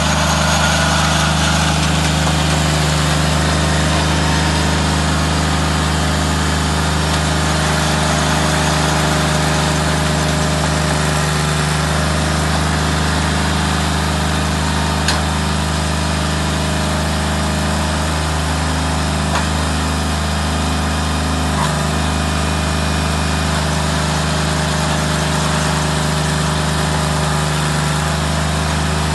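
Ride-on deep drill aerator's engine running at a steady speed, with one sharp click about halfway through.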